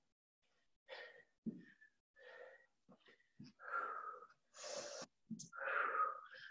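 A person breathing hard from exertion: a series of about six short, breathy exhales and puffs, the longer and louder ones in the second half.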